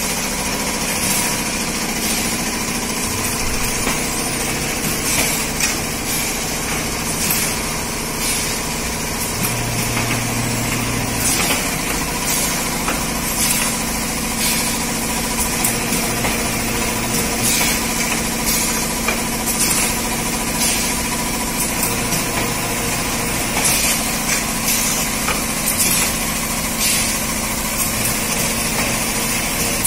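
Automatic dignity sheet (disposable medical underpad) machine running: a steady machine hum with short, sharp clacks or hisses recurring roughly once a second.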